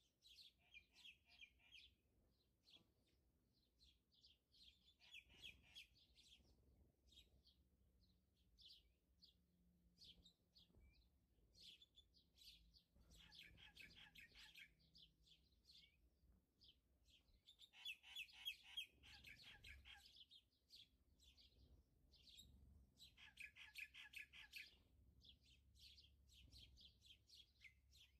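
Faint bird chirping throughout, with several louder rapid trills a few seconds apart.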